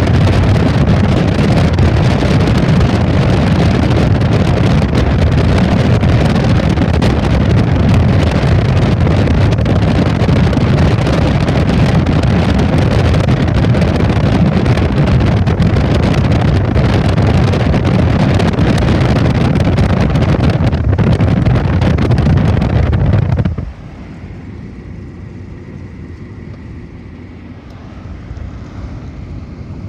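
Steady wind buffeting and road noise from a moving car. About 23 seconds in it drops suddenly to a much quieter, steady road hum.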